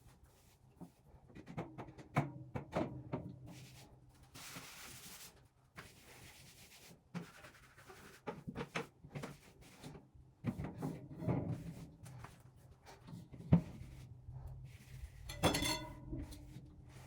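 Household handling sounds, typical of cleaning out a refrigerator: scattered knocks and clatter of things being moved and set down, with a brief hiss about four seconds in. Near the end comes a sharp knock, then a ringing clink.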